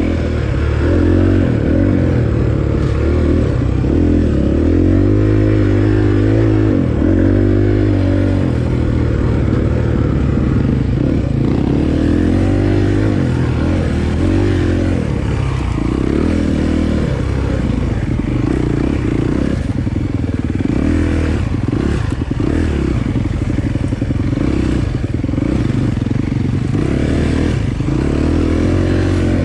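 Dirt bike engine being ridden, revving up and down over and over as the throttle opens and closes.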